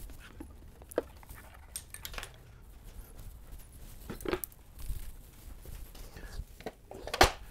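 A few separate light metal clinks and knocks from hand tools and engine parts being handled during an engine teardown: one about a second in, one about four seconds in, and the loudest near the end.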